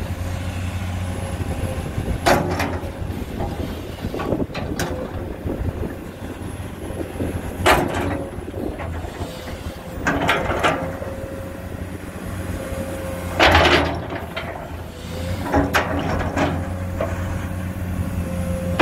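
Komatsu PC210 excavator's diesel engine running steadily under load with a thin steady whine, while several brief louder scrapes and clunks come as the bucket digs into and pushes the soil, the loudest about two-thirds through.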